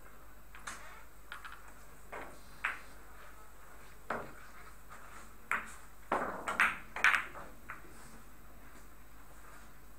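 Billiard balls on a pocketless Italian billiards table: a single click about four seconds in, then a quick cluster of sharper ball-on-ball clicks and cushion knocks as the balls run, the loudest about seven seconds in.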